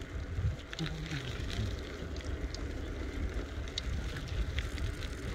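Wind rumbling on the phone's microphone outdoors, with scattered light clicks and a brief faint voice about a second in.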